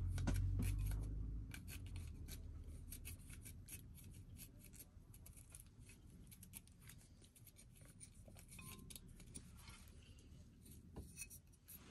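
Faint, scattered scraping and clicking of kitchen utensils, with a low hum that fades out over the first second and a half.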